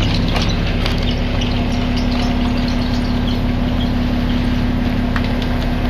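An engine running steadily at an even pitch, with a few faint clicks.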